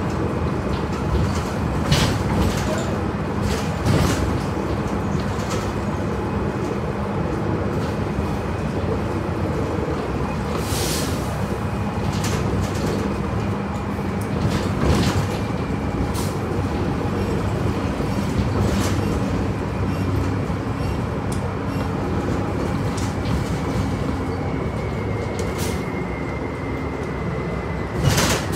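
Inside a city transit bus: a steady engine drone with a low hum, broken by occasional sharp rattles and knocks from the bus's fittings, the loudest near the end.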